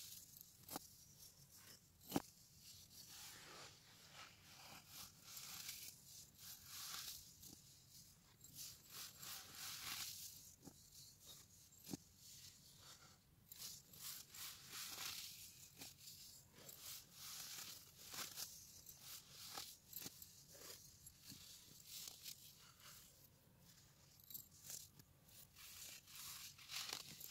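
Blocks of dyed baking soda being crushed and crumbled between the fingers into loose powder: soft, irregular crunching and crackling, with a sharper snap about two seconds in and another near the middle.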